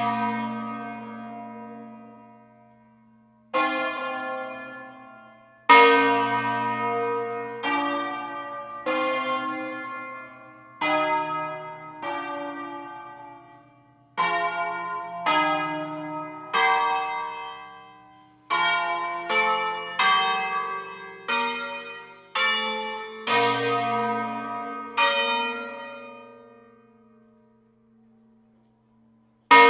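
Church bells of an eight-bell ring in B-flat, cast by Fratelli Barigozzi of Milan, rung in concerto: single strokes of different bells follow one another at uneven spacing to make a tune, each note ringing on and fading under the next. The strokes pause for about two seconds near the end, then a strong stroke sounds.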